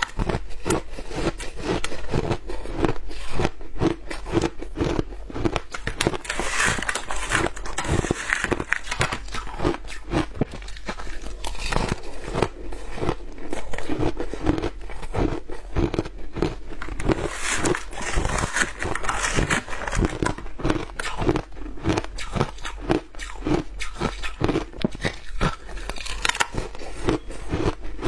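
Shaved ice being bitten and crunched in the mouth: a steady stream of crisp crunches, mouthful after mouthful.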